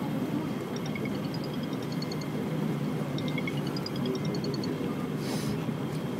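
Singapore MRT train running on elevated track, heard from inside the carriage: a steady low rumble of wheels and running gear. A faint run of short high electronic beeps repeats twice over it, and there is a brief hiss about five seconds in.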